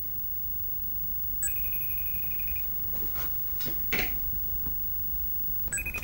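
FaceTime outgoing call ringing from a Mac laptop: a short electronic ring of about a second, heard once and starting again near the end.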